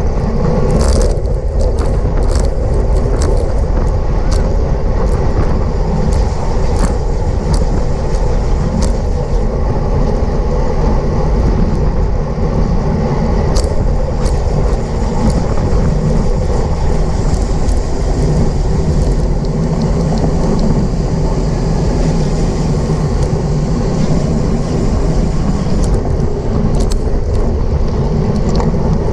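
Wind rushing steadily over the microphone of a camera on a bicycle riding at race speed in a pack, with scattered sharp clicks from the bike.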